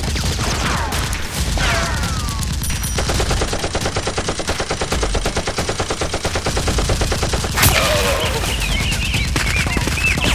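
Rapid gunfire, the kind of gun sound effect laid over a Nerf blaster fight: scattered shots, then a fast, steady automatic burst through the middle, and one loud bang near the end.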